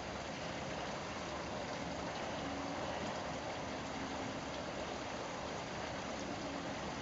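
Steady, even rushing background noise with no distinct events, and a faint low hum that shows briefly about two and a half seconds in and again near the end.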